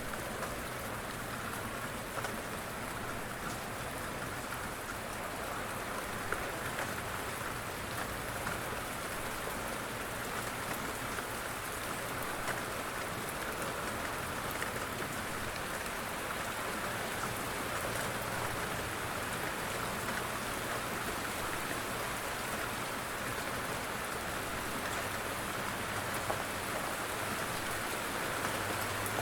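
Steady light rain falling on a surface, an even hiss with scattered small drop ticks.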